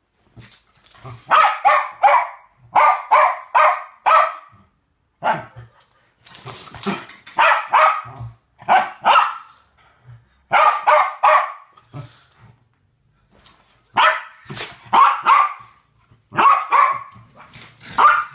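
A West Highland White Terrier barking in repeated bursts of three to five quick barks, with short pauses between the bursts.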